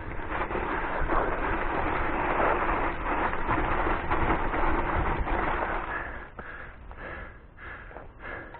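Mountain bike rolling fast down a loose gravel and dirt trail: a steady rough noise of tyres and bike over the ground that drops off about six seconds in, with a few short clicks and knocks after.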